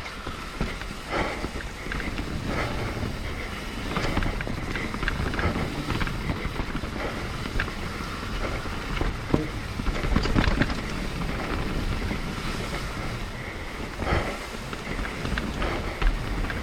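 Mountain bike riding down a rough dirt trail: wind buffeting the microphone over the rumble of tyres, with frequent knocks and rattles as the bike hits bumps.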